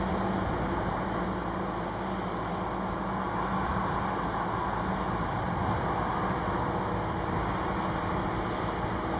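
Diesel engines of a concrete road-paving train (slipform paver and curing-spray rig) running steadily: a constant machinery drone with a low hum in it.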